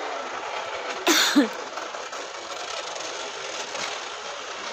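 Steady city street noise, with one short loud burst about a second in.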